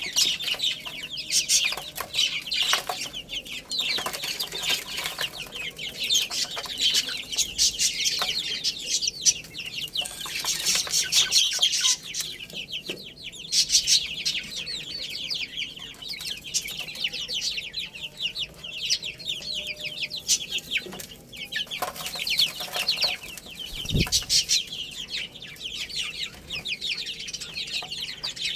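A group of baby chicks peeping without pause, many rapid high-pitched chirps overlapping. A single dull thump sounds once, late on.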